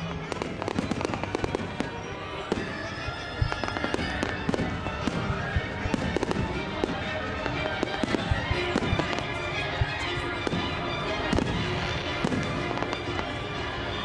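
Fireworks display with a rapid, continuous run of bangs and crackles from bursting aerial shells, and music playing underneath.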